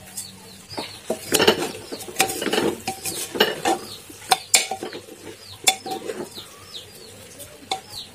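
Steel spoon scraping and clinking against the inside of an aluminium pressure cooker as washed basmati rice is spread and stirred in, in irregular scrapes and knocks. Short bird chirps repeat in the background in the second half.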